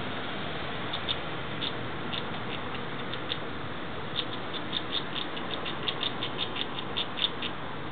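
Fox squirrel gnawing through a walnut shell with its teeth: a string of small sharp clicks, sparse at first, then coming several a second in the second half, over a steady hiss.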